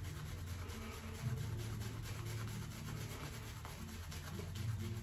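Shaving brush scrubbing shaving soap over stubble in quick, even strokes: a steady scratchy brushing as the soap is worked from a pasty start into a lather on the face.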